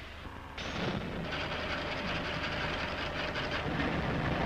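Aircraft factory workshop din: a dense, rapid mechanical clatter over a faint steady hum, coming in about half a second in.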